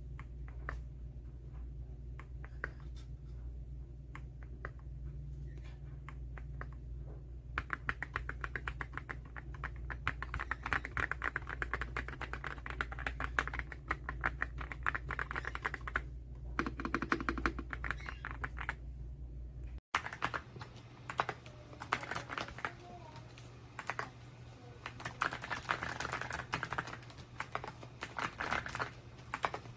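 Typing on a YUNZII X98 mechanical keyboard: a few scattered keystrokes at first, then fast continuous typing over a steady low hum. After a brief dropout the typing carries on with less hum beneath it.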